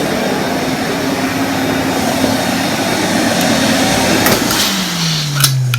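Hoover Constellation 843 canister vacuum cleaner with a UK-converted motor, running steadily. After a click about four seconds in it is switched off, and the motor's pitch falls as it runs down.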